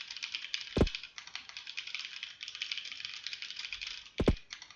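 Fast, continuous typing on a computer keyboard, a steady stream of key clicks. A heavy thump cuts in about a second in and a double thump near the end.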